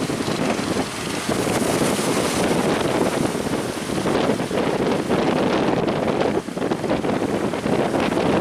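Strong wind buffeting the microphone in a steady rough rumble, with surf breaking underneath.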